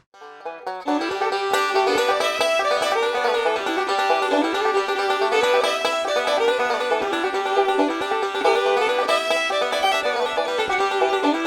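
Background music: an upbeat bluegrass tune with picked banjo, starting about a second in.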